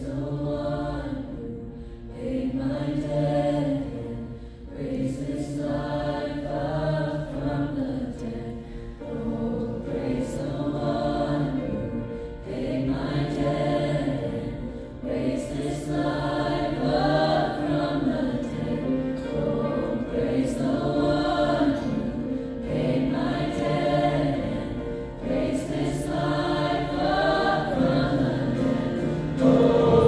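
A choir singing a worship song, the voices together in long phrases of about two seconds each with short breaths between.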